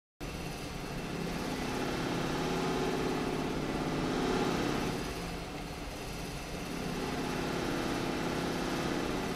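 Steady mechanical hum with hiss, starting abruptly just after the start, swelling a little in the middle and again near the end.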